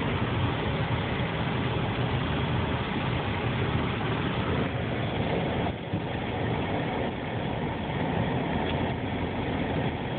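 A car running, heard from inside its cabin as a steady low engine and road noise, with a brief dip about six seconds in.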